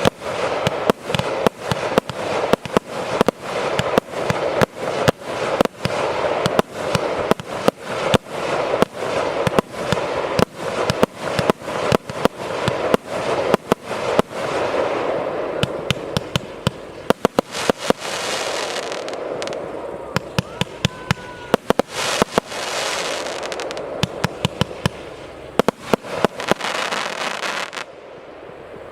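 TKB274 'За100льный' consumer fireworks battery (cake) firing in rapid succession: a steady run of launches and aerial bursts, about two bangs a second, with stretches of hissing crackle between the bangs in the second half.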